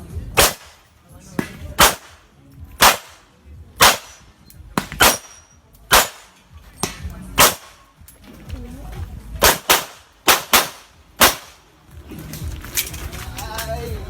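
9mm Glock pistol firing a practical-shooting course of fire: about fifteen sharp shots, irregularly spaced, some in quick pairs and some after pauses of a second or more.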